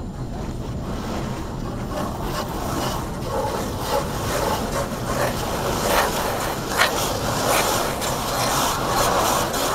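Automatic car wash heard from inside the car: wash brushes scrubbing and slapping against the windshield and body over a rush of water spray. The scrubbing grows louder about two seconds in, with a few sharper slaps near the middle.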